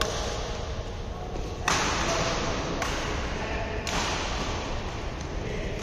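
Badminton rackets striking a shuttlecock in a doubles rally: four sharp hits about a second apart, each followed by a short echo in the hall, over a steady low background hum.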